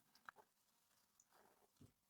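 Near silence: room tone with two faint clicks, one about a third of a second in and a soft knock near the end.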